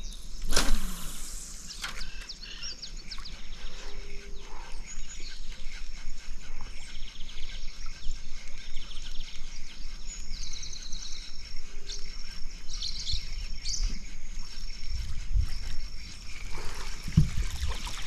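Birds chirping and insects calling, in many short high chirps over steady high buzzing. A sudden swish about half a second in, and a dull low thump near the end.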